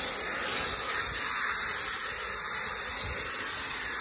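Cordless drill spinning a round scrub brush against foamy car-seat upholstery, a steady hissing scrub of bristles working cleaner into the fabric.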